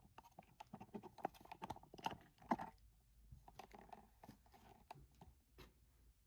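Faint, irregular small taps, clicks and scrapes as a cardboard box is handled.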